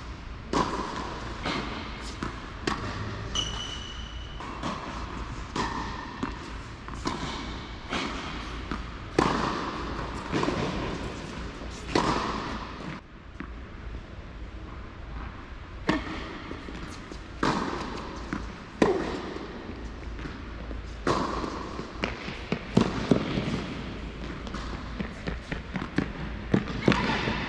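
Tennis balls struck by racquets and bouncing on a hard court, irregular sharp hits from a fraction of a second to a couple of seconds apart, each echoing in a large indoor tennis hall.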